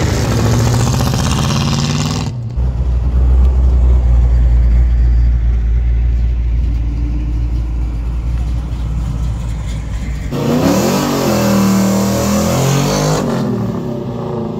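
Classic American cars driving off one after another. Their engines run with a deep, steady low rumble through the middle, then one revs up and down as it accelerates away about ten seconds in.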